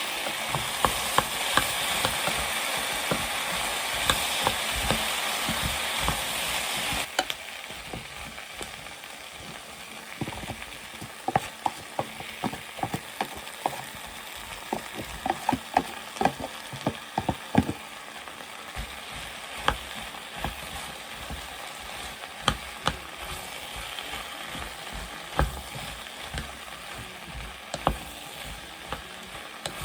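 Curry vegetables frying and sizzling in a pan while a utensil stirs them, with many sharp clicks and knocks of the utensil against the pan. The sizzle is louder for about the first seven seconds, then drops suddenly to a lower level.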